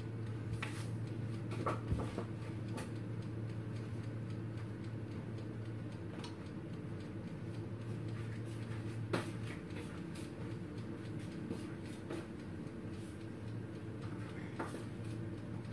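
A steady low hum with scattered light clicks and knocks in a kitchen; the hum stops a little past halfway.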